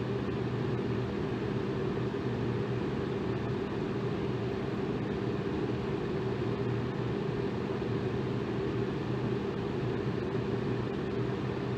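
Electric fan running steadily: an even whoosh of moving air with a low motor hum.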